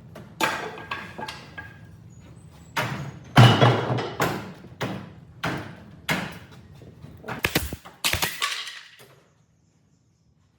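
Wood being struck: about a dozen hard knocks at uneven intervals, each ringing briefly, then stopping about nine seconds in.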